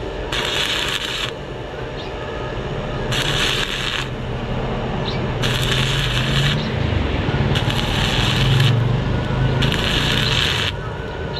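Electric arc welding: the crackling, hissing arc is struck about five times, each run lasting from half a second to two seconds with short pauses between, over a steady low hum.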